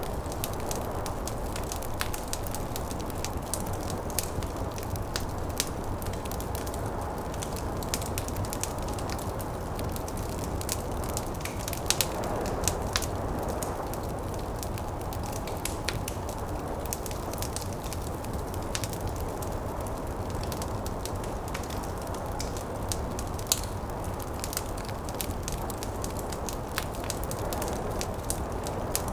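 Wood fire crackling in a fireplace, with frequent sharp pops and snaps, over a steady low rush of snowstorm wind that swells briefly twice.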